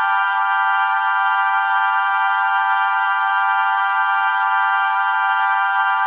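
Music: a steady, unchanging drone of held tones with no beat and no low end.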